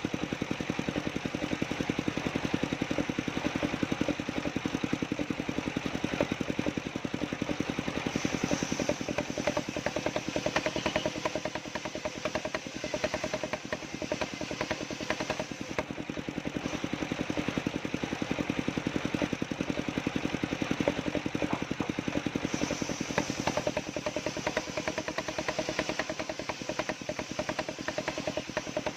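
Engine of a homemade wood-cutting sawmill running steadily with a fast, even firing rhythm, easing slightly in the middle and picking up again.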